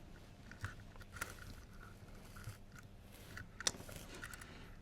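Faint clicks and light taps of small parts and tools being handled while a model locomotive is reassembled, the sharpest click about three and a half seconds in.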